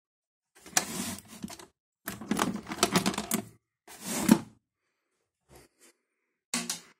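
Padlocks clattering and clinking together as a hand rummages through a bucket of locks, in three bursts of rattling, then a few lighter clicks near the end.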